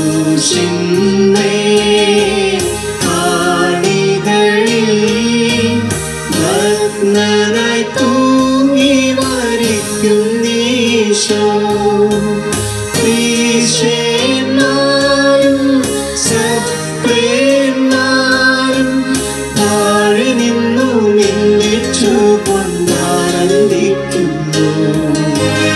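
A Malayalam devotional hymn sung over instrumental accompaniment, the melody held in long, wavering notes.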